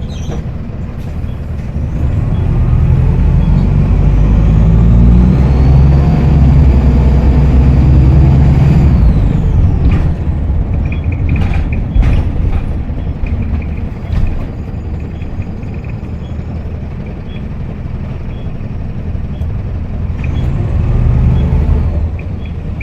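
Optare Solo SR bus's diesel engine pulling hard with a rising turbocharger whistle for several seconds, then easing off. A few sharp knocks follow, and the engine and whistle pick up again briefly near the end.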